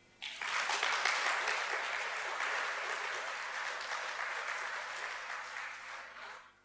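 An audience applauding. The applause breaks out just after the start, holds for about six seconds and fades out near the end.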